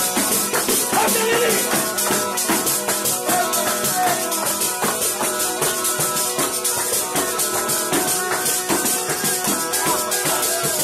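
Zampogna (southern Italian bagpipe) playing a tarantella over its steady drones, with a tamburello (jingled frame drum) beating a fast, even rhythm.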